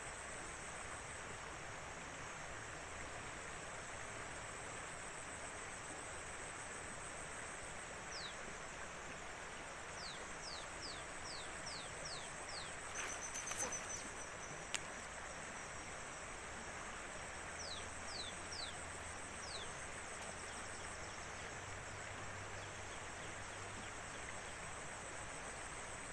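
Riverside outdoor ambience: a bird gives two runs of short, quick descending whistles over a constant hiss and a high, pulsing insect trill. Near the middle there is a brief clatter and one sharp click.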